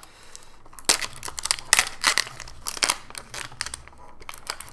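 Protective plastic film being peeled by hand off the front cover of a Samsung Gear VR headset, crinkling and crackling in a string of irregular sharp snaps as the strongly glued film pulls away.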